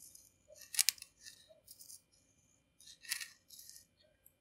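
Short, scratchy strokes of a pen-like drawing tool's tip dragging across the dry surface of a sugar cookie as lines are drawn on it, with the two loudest strokes about a second in and about three seconds in.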